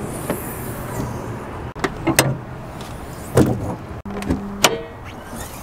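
Pickup truck door handle and latches being worked: several sharp clicks and clunks over steady outdoor background noise.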